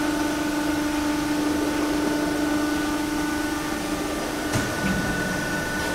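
Workshop machinery running steadily: a hum with one clear low tone and fainter higher whines. A single sharp click comes about four and a half seconds in, after which the low tone drops away.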